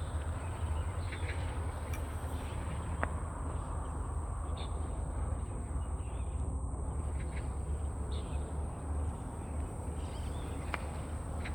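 Outdoor field ambience: a steady low rumble on the microphone and a constant high-pitched hiss, with a few scattered short bird calls.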